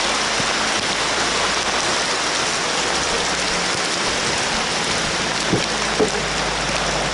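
Heavy rain falling steadily and hard, heard from inside a car, with a couple of faint knocks about five and six seconds in.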